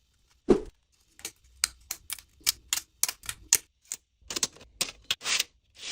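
A run of sharp, irregular clicks, about four a second, with a short pause about three and a half seconds in.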